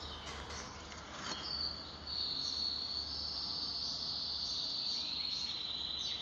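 A high-pitched insect trill, steady and unbroken, starting about a second and a half in, over a faint low hum.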